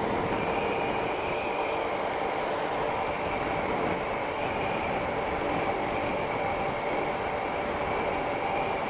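Steady wind rush and a motorcycle engine running at a constant speed of about 70 km/h, picked up by a helmet-mounted external action-camera microphone with the visor open. The microphone is padded with cotton and surgical tape to cut the wind noise.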